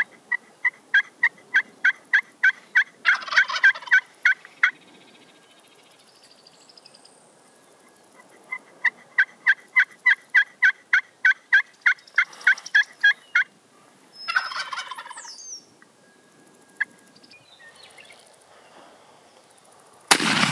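Wild turkeys calling: a long run of evenly spaced turkey yelps, about four to five a second, with a tom gobbling over them a few seconds in. A second run of yelps follows, then another gobble. Near the end a single loud shotgun blast goes off as the tom is shot.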